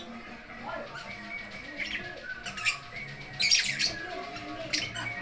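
Lovebirds giving short, sharp squawks and chirps several times while a pair mates in the cage, the loudest calls a little past halfway.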